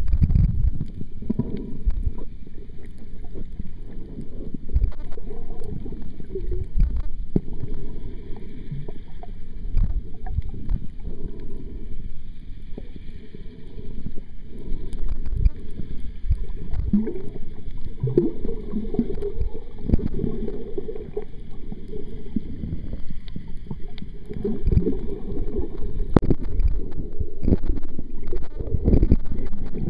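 Underwater water noise picked up by a camera held below the surface: a muffled low rushing and sloshing that swells and fades irregularly with the swimmer's movements, with a few sharp clicks.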